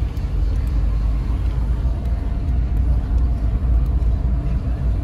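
A car driving slowly, heard from inside the cabin: a steady low rumble of engine and tyre noise.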